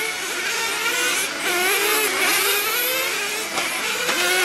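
Several glow-fuel RC car engines racing at once, their high, whining pitches overlapping and rising and falling as the cars accelerate and back off around the track.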